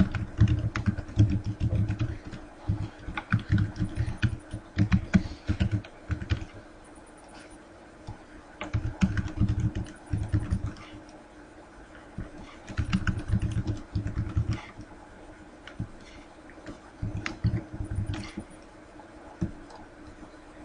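Computer keyboard typing in bursts of rapid keystrokes, with pauses of a second or two between the bursts.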